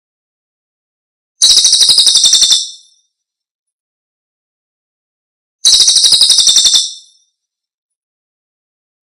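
Celilin bird song, played as a lure and master recording. There are two high, rapid trills, about a second in and near the middle, each about a second long. Each trill is a quick run of around a dozen sharp notes, with silence between them.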